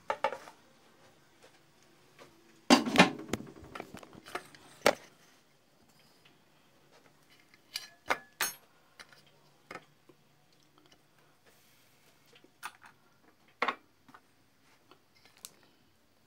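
Kitchen crockery and utensils being handled on a counter: scattered clinks and knocks, the loudest cluster about three seconds in, then sparser single taps.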